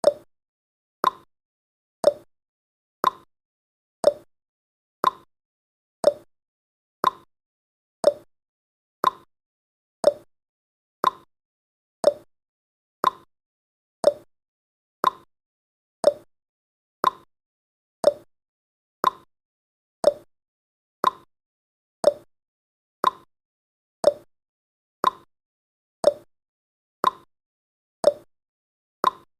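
Countdown timer's ticking sound effect: one short, sharp tick every second, evenly spaced, with silence between the ticks.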